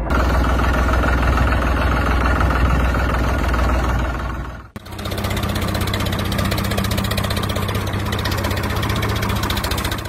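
Tractor engine sound effect running steadily with rapid even beats. About five seconds in it cuts out briefly and another running-engine sound takes over, with a steadier low hum.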